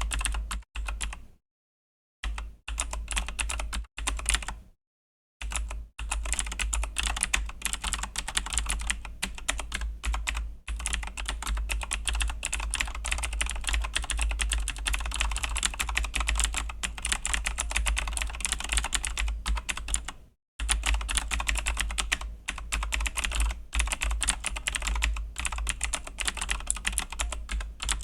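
Fast, continuous typing on a Razer BlackWidow V3 mechanical keyboard with clicky Razer Green switches: a dense stream of sharp key clicks. It breaks off briefly about a second in, again around five seconds, and once more about twenty seconds in.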